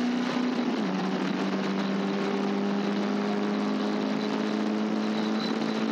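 Caterham Seven race car engine running under wind and road noise. Its note drops slightly about a second in, then holds steady.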